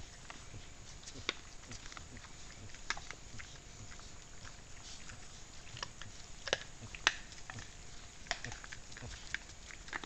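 Peccaries foraging in leaf litter: irregular sharp cracks and clicks of chewing and rooting, two of the loudest close together a little past the middle, over a faint steady hiss.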